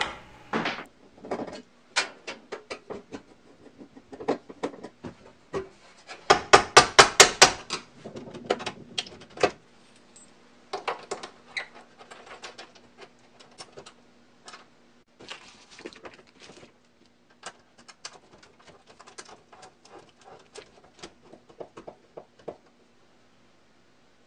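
Clicks, knocks and scrapes of hand work: a drywall screw being driven with a hand screwdriver into a pilot hole in a steel post, with a quick, even run of clicks partway through. Later come sparser clicks and rustles of wires and metal being handled at a breaker panel.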